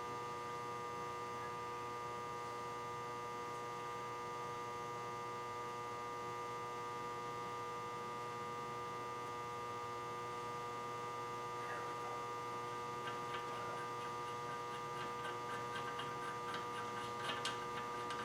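Steady electrical hum made of several fixed tones, with faint, irregular light ticks and clicks over the last third.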